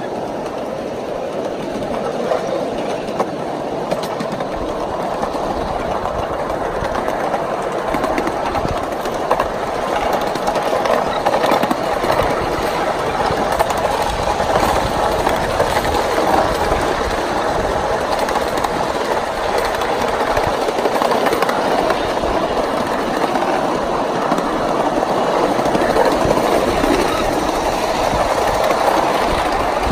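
A 1-inch-scale ride-on miniature train running along its track, heard from a riding car: a steady rolling rattle of small wheels on the rails, with scattered clicks from the rail joints.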